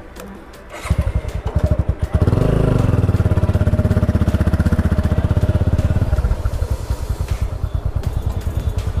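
Motorcycle engine pulling away: it picks up about a second in, revs up a little after two seconds, runs steady under throttle, then eases off about six seconds in.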